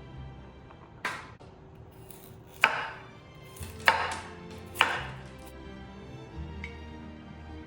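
Knife chopping on a cutting board: four sharp strikes, irregularly spaced a second or more apart, over soft background music.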